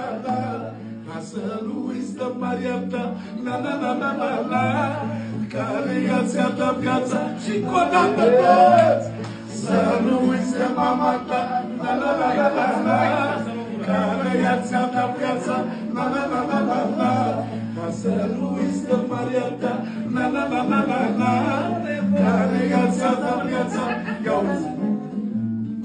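A man singing manele live, accompanied by a strummed acoustic guitar whose low bass notes change in a steady pattern. About eight seconds in, a rising vocal glide marks the loudest moment.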